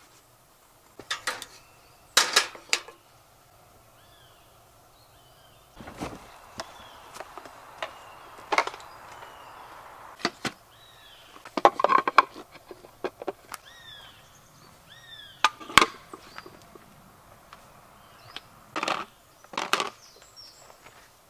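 Knocks, clatter and thuds of camp gear being handled and set down, a dozen or so sharp impacts spread through, the loudest about two seconds in, halfway and near three-quarters. Short falling chirps from a woodland bird repeat in the background through the middle part.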